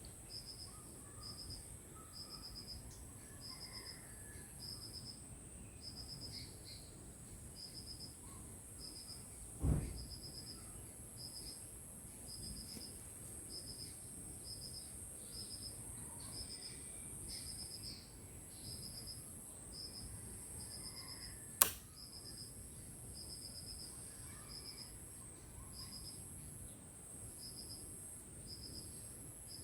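Insects chirping in short repeated pulses, about one a second, over a steady high-pitched insect drone, with a few faint bird calls. A dull thump comes about ten seconds in, and a sharp click, the loudest sound, comes a little past twenty seconds.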